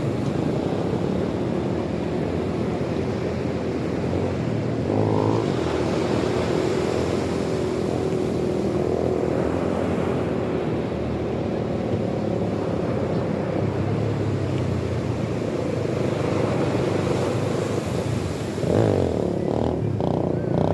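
An engine running steadily, with a faint wavering hum over a wash of noise.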